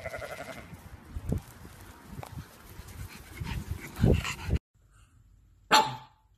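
Outdoor rustling and thumps, with a sheep's bleat in the first half-second. It cuts to near silence, broken about six seconds in by one short, sharp huff from a pug.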